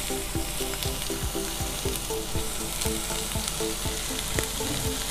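Sliced green capsicum (bell pepper) sizzling in hot oil in a frying pan with onions and tomatoes, a steady hiss, over background music with a regular beat.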